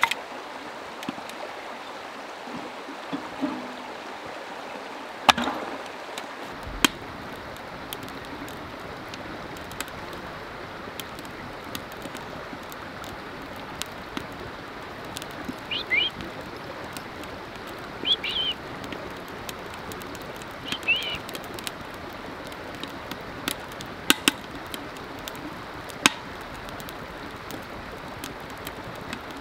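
Creek running steadily, with scattered sharp clicks and knocks, and three short bird chirps about halfway through.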